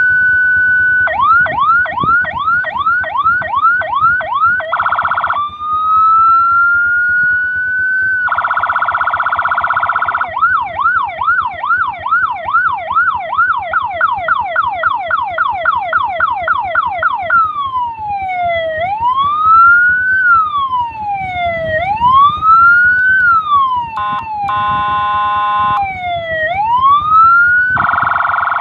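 Multi-tone electronic siren cycling through its tones: rapid yelp sweeps of about three to four a second, slow rising and falling wails, and short buzzy horn blasts between them.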